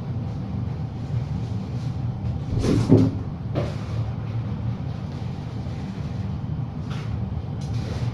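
A steady low hum, with a single thump about three seconds in and a few faint clicks later.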